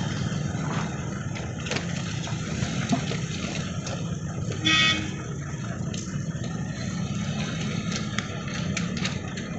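Road traffic crossing the railway: motorcycles and a van moving over the tracks with a steady low engine hum, and one short vehicle horn toot about five seconds in.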